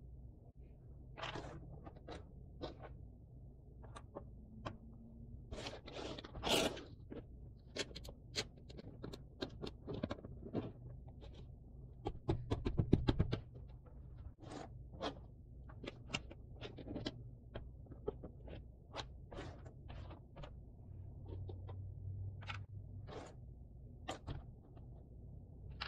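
Cardboard jigsaw puzzle pieces being handled on a table: a scattered run of light clicks, taps and scrapes, with a denser burst of rapid clicks about halfway through.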